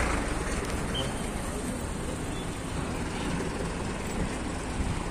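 Steady road-traffic noise, an even rumble and hiss of vehicles on the road with no distinct passing or horn.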